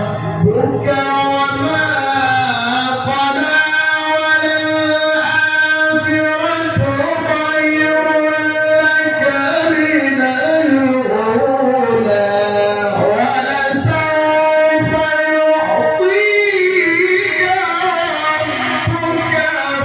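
A male Quran reciter's voice in melodic tilawah, drawing out long ornamented notes that slide up and down in pitch with only brief breaks.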